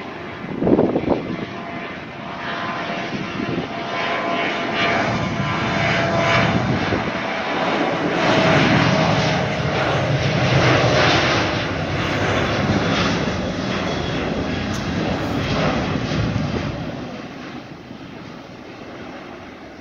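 Southwest Airlines Boeing 737's twin jet engines at takeoff power on the takeoff roll. The steady rushing noise builds to its loudest around the middle, with a faint whine that drops slightly in pitch as the jet passes, then fades over the last few seconds as the plane lifts off. A brief muffled bump comes about a second in.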